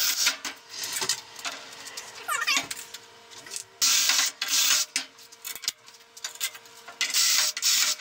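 Cordless drill boring through pallet wood, guided by the holes in a steel bar. It runs in bursts, loudest about four seconds in and again near the end, with the motor winding up in between and a few short metal clinks.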